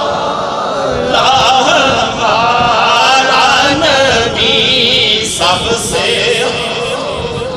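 A man singing an unaccompanied Urdu naat into a microphone, a melodic devotional recitation in praise of the Prophet, on the refrain beginning 'sabse'.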